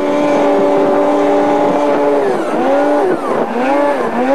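Racing snowmobile's two-stroke engine at high revs, holding one steady pitch, then about two seconds in falling and climbing back several times as the throttle is eased and reopened.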